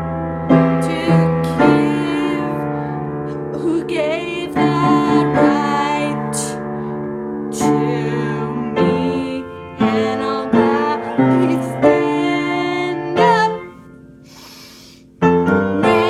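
A woman singing over piano accompaniment, with the music dropping out briefly near the end before it picks up again.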